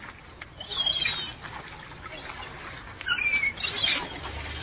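Gulls calling: short, high-pitched cries in two bursts, one about a second in and another from about three to four seconds in.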